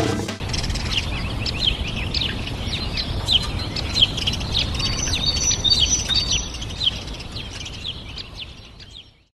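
A flock of birds chirping: many short, high calls overlapping one another, some sweeping down in pitch, fading away near the end.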